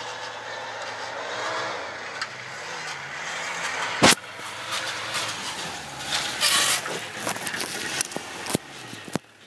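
Off-road 4x4 SUV engine working along a snowy forest track, its pitch wavering up and down with the throttle. A sharp knock about four seconds in is the loudest sound, and bursts of rustling noise follow in the second half.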